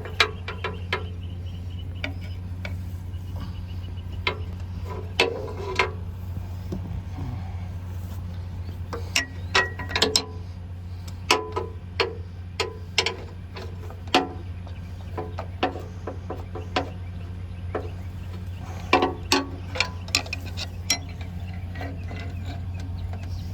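Hand tools clicking and clinking against metal at irregular intervals while a tractor's fuel line is being replaced, over a steady low hum.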